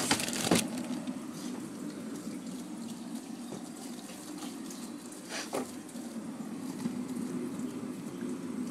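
A steady low hum, with a brief loud burst of knocking and rustling at the start and another about five and a half seconds in, as the phone is moved against bags of frozen food inside a freezer.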